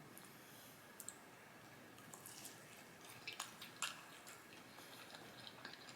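Faint, close-miked wet chewing and mouth clicks of someone eating a meatball, with a cluster of sharper smacks about two to four seconds in.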